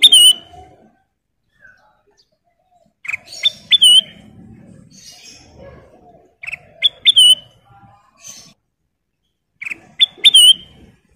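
A kutilang emas bulbul repeating a short, loud whistled phrase four times, about every three seconds. Each phrase is a few quick sharp notes ending in one note that dips and then rises.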